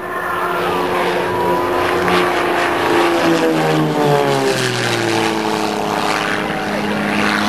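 A propeller-driven aerobatic plane's engine droning loudly as it flies past. Its note falls in pitch about three to five seconds in as it passes.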